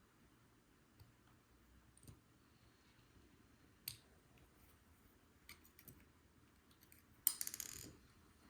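Small metal clicks and ticks from padlock pins and tools being handled while a pin stack is taken out of the lock. Near the end comes a louder rattle of rapid metal ticks lasting under a second.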